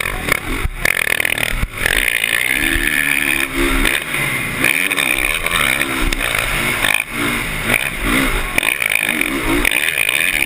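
Motocross bike engine at race pace, revving up and falling back again and again as the throttle opens and closes.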